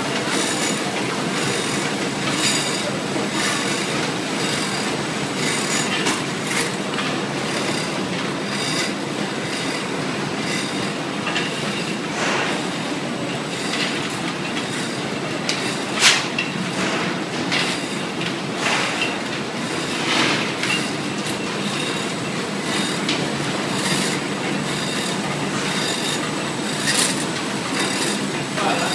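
Automatic milk-candy packaging machine running: a steady mechanical noise from its bowl feeder and chain conveyor, with many irregular clicks and ticks and one louder knock about halfway through.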